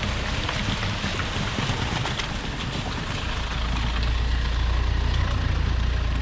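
Lexus engine running as it drives through a stream, with a steady rush of moving and splashing water. The low engine rumble grows heavier about three seconds in.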